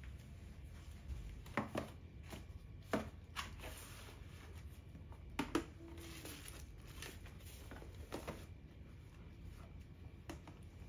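Scattered light knocks and taps of storage containers and a cardboard box being handled and set onto the shelves of a slim slide-out storage cart, with a short brushing sound about six seconds in as the box slides into place.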